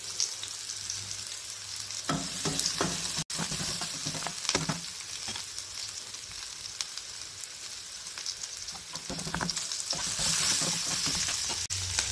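Diced capsicum and chopped garlic sizzling in hot oil in a frying pan over a high flame, with the scrape and clack of a few stirring strokes against the pan. The sizzle grows louder near the end.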